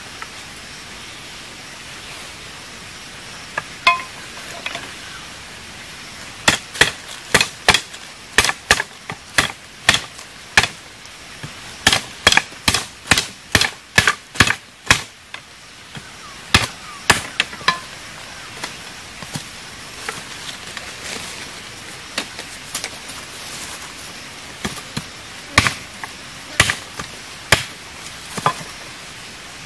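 Machete chopping thin green wooden poles: runs of sharp chops at up to about two a second, broken by pauses, over a steady background hiss.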